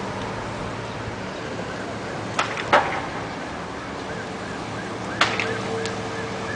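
Sharp cracks from the burning boat: two in quick succession about two and a half seconds in, the second the loudest, and a third about five seconds in, over a steady rush of wind. From about five seconds in, a faint siren wails in the distance.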